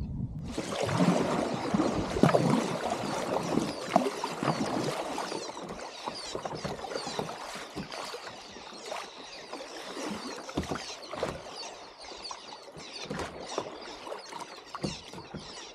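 Water splashing and trickling close around a kayak, with many small crackling splashes. It starts suddenly, is loudest over the first few seconds, then settles to a quieter trickle.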